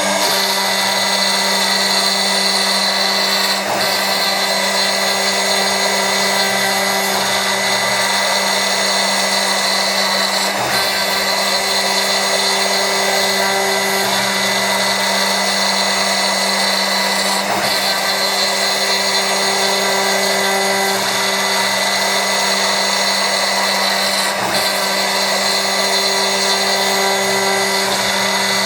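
CNC milling machine spindle running steadily while a 3 mm radius ball-nose end mill cuts, a constant whine with a short break about every seven seconds.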